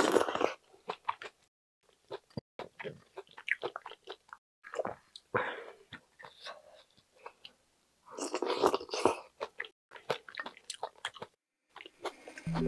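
Close-miked eating sounds: wet chewing, lip smacks and mouth clicks of rice soaked in kimchi-stew broth, with three louder bursts of slurping as she brings the chopsticks to her mouth. A musical chime begins right at the end.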